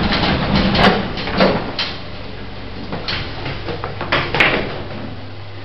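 Modern passenger lift's sliding doors and mechanism: a scattered run of clicks and knocks, then a steady low hum from about two seconds in.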